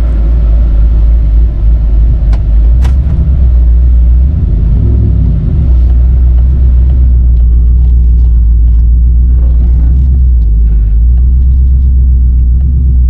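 A truck driving, a loud steady low rumble of engine and road noise heard from inside the vehicle, with two short sharp clicks a couple of seconds in.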